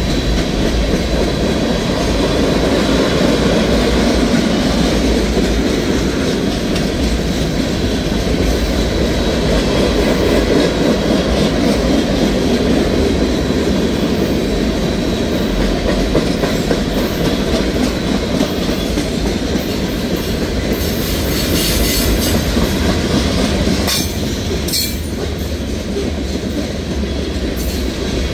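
Freight train of tank cars rolling past close by: a steady, loud rumble of steel wheels on rail. A few brief high-pitched wheel screeches come near the end.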